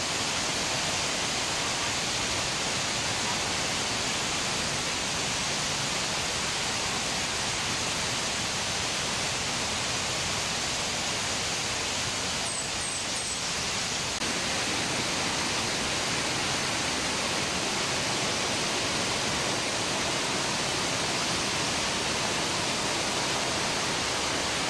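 Steady rush of water pouring over the cascades of a waterfall, with a few faint high chirps about halfway through.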